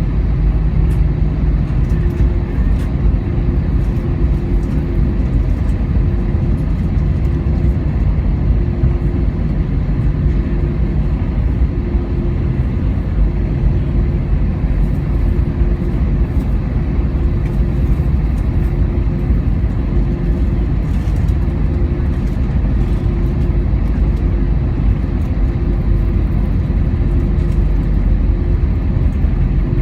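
Airbus A320-216 cabin noise after landing: the CFM56 engines at idle and a steady low rumble through the airframe, with a constant hum. This is typical of the aircraft taxiing in after touchdown.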